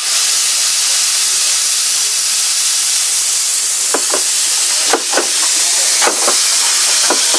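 Loud, steady hiss of steam from the steam locomotive, starting suddenly, with faint paired clicks about once a second from about halfway through, typical of the coach wheels passing over rail joints.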